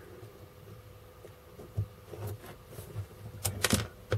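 Plastic parts of a desoldering gun's housing being handled and fitted together: soft taps and knocks, with two sharp clicks close together about three and a half seconds in. A faint steady hum runs underneath.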